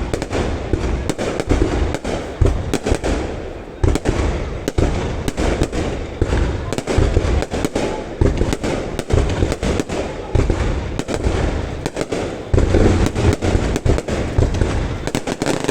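Aerial fireworks display going off continuously: many booming bursts and sharp cracks in quick, overlapping succession, with a constant low rumble underneath.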